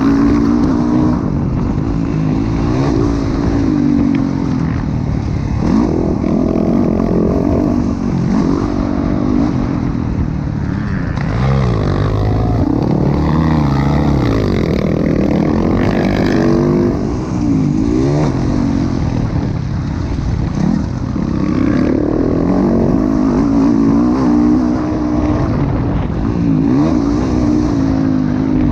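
Motocross dirt bike engine at race pace, its revs rising and falling again and again as it accelerates, shifts and backs off through jumps and turns.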